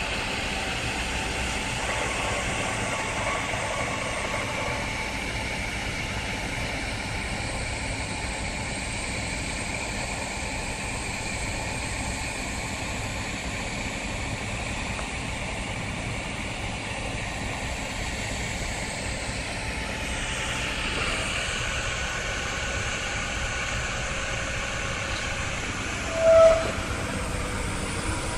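Steady noise of heavy machinery running on a construction site, an even rumble and hiss with faint engine hum. A short, loud single-tone beep sounds near the end.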